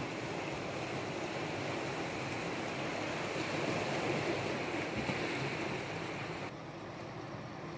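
Small sea waves washing against a rocky shore, a steady rush of surf that swells about four seconds in and turns duller near the end.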